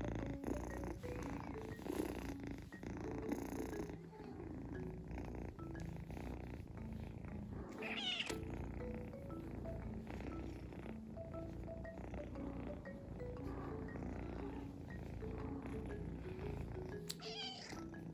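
Munchkin kitten purring steadily while being stroked, giving two short meows, one about eight seconds in and one near the end, over light background music with mallet-like notes.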